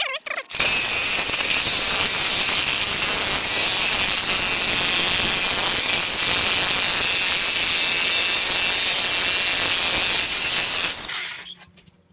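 Corded Skil jigsaw cutting into a metal wing-stand bracket. It starts suddenly about half a second in, runs steadily for about ten seconds, then winds down and stops near the end.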